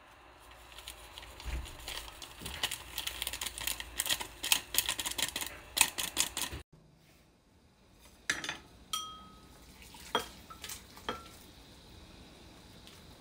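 A foil seasoning sachet crinkling and being shaken and tapped out over a ceramic bowl, a dense run of small clicks and rustles. After a break, a few separate sharp clinks with a brief ring, a metal pot knocking against the ceramic bowl.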